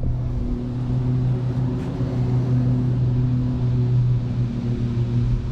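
A steady low motor hum that stops near the end, over a rush of wind on the microphone.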